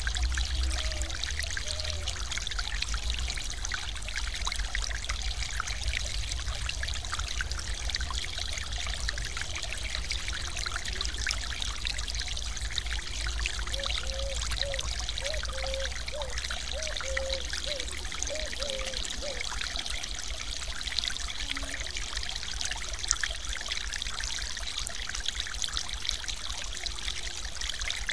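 Stream water pouring over the edge of a small concrete weir, a steady splashing rush.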